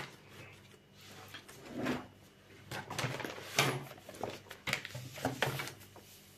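Hands handling paper on a clipboard: scattered rustles, scrapes and light knocks, the loudest a little past three and a half seconds in and again near five seconds.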